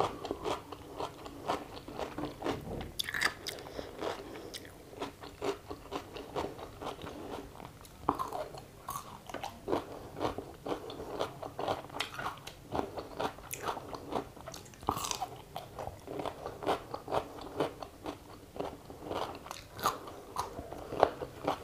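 Raw cucumber slices being bitten and chewed close to the microphone: a quick, irregular run of short crunches.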